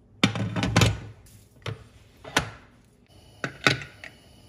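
Aluminium pressure cooker lid being set on the pot and worked closed: a quick cluster of metal clanks and scrapes, then several single sharp clicks as it is fitted and locked.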